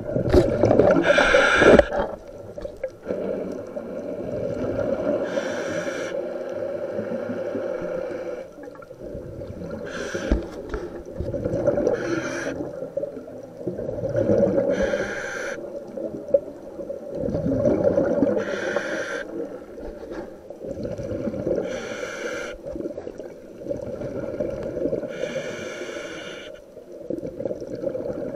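Scuba diver breathing underwater through a regulator: a short hiss as each breath is drawn, every three to four seconds, with bubbling, gurgling exhalations in between.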